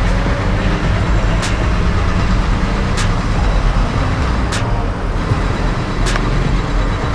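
Motor vehicle engine running close by, a loud steady low rumble, with a sharp tick about every second and a half.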